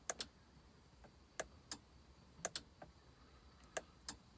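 Solenoids on a Case TR320 skid steer clicking faintly, in pairs, each time start is pressed, with no starter cranking or engine running: the machine's intermittent no-start fault.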